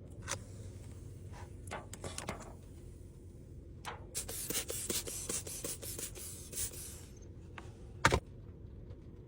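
Hands handling things at close range: scattered light clicks and taps, a stretch of rubbing and scraping in the middle, and one sharp knock near the end.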